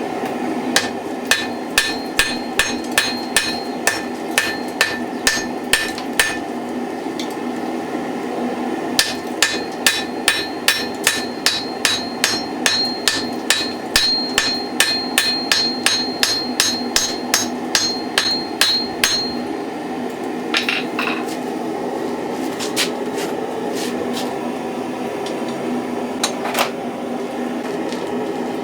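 Hand hammer striking hot steel on an anvil: forge welding mild steel cheeks onto a steel axe head. It comes in two long runs of ringing blows, about two to three a second, with a pause between and a few single knocks near the end. The forge runs steadily underneath.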